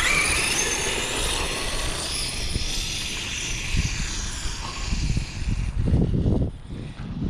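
Brushless electric motor of a 12S Kraton RC truck whining as it accelerates flat out on a speed pass. The rising whine tops out just after the start and fades away over the next few seconds as the truck pulls away, with wind buffeting the microphone more strongly near the end.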